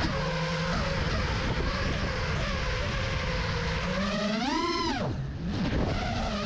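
FPV quadcopter's brushless motors and propellers (iFlight XING-E Pro 2207 1800KV motors on 6S) running at a steady throttle, then a sharp rising whine as the throttle is punched about four seconds in. The whine drops away abruptly around five seconds, as the throttle is cut, and spools back up near the end.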